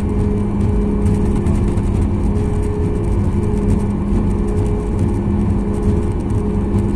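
Cabin noise of a Boeing 737 MAX 8 during taxi: its CFM LEAP-1B engines running at low power, heard as a steady low rumble with a held hum.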